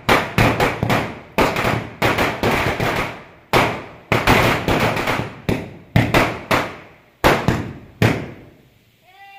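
Firecrackers going off in a rapid, uneven series of sharp bangs, two to four a second, for about eight and a half seconds, then stopping shortly before the end.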